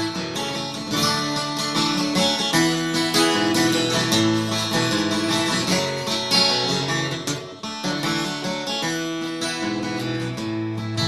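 Acoustic guitar played solo, picked and strummed chords in an instrumental break between verses of a folk song.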